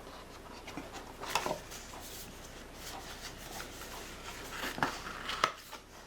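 Packaging rustling and scraping as parts are taken out of a product box, with a few light knocks, about a second in and twice near the end.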